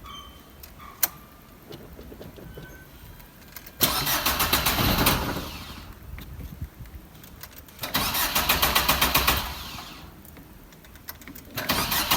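Car engine cranked on the starter three times, each try about two seconds of fast, even chugging that stops without the engine catching: a car that cranks but won't start. The third try begins near the end.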